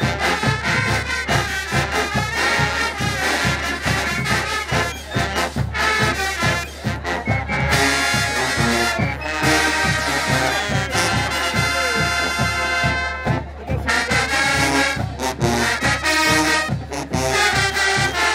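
Marching band playing: full brass section with sousaphones over a steady, driving drum beat, rising to long held brass chords midway through.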